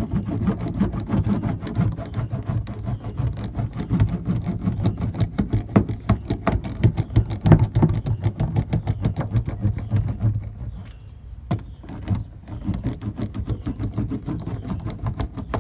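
A small hand roller pressed back and forth over foil-faced 80 mil Noico sound-deadening mat, making a fast, dense run of crinkling, scraping strokes as it presses the mat onto the bare metal. The rolling eases off about ten seconds in, then starts again.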